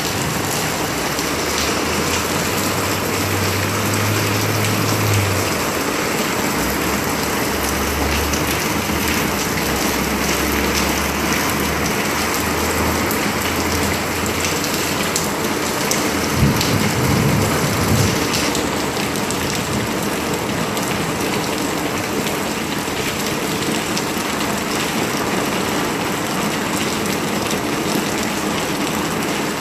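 Steady rain falling and splashing on surfaces, an even hiss throughout. A low rumble comes and goes in the first half.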